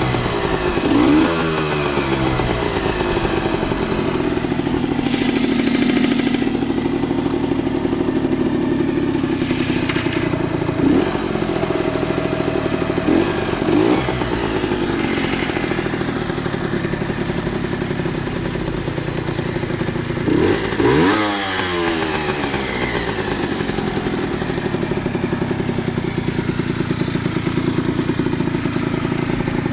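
Honda NSR50's small two-stroke single-cylinder engine idling, blipped with the throttle several times: short revs about a second in and a few more in the middle, with the biggest rev about two-thirds of the way through.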